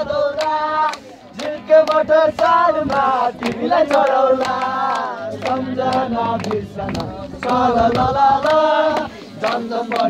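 A group of voices singing a song together, with steady hand-clapping at about three claps a second keeping the beat.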